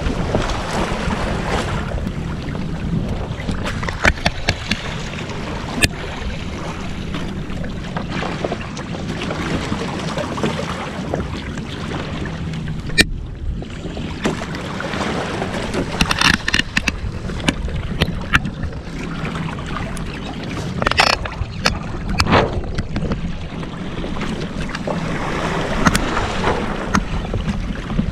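Water rushing and splashing along the hull of a Hobie Adventure Island sail kayak under way, with wind noise on the microphone. Now and then comes a short sharp slap or knock.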